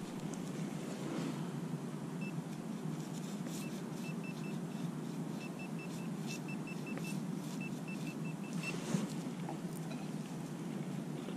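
Orange Garrett Pro-Pointer pinpointer beeping in runs of short, rapid, high beeps as its tip is worked over a buried target in the grass, the beeping a sign that it is close to the metal. A steady low rumble sits underneath, with a few light rustles and clicks.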